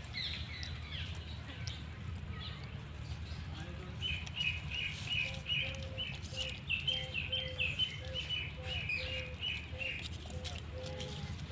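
A bird chirping in a quick run of short high notes for about six seconds, starting about four seconds in, over a lower short note repeated about once or twice a second and a steady low background rumble.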